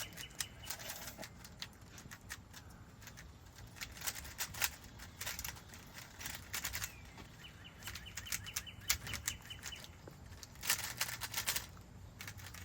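A Rubik's cube being turned fast: clusters of quick plastic clicks as the layers snap round, coming in irregular bursts with short pauses between.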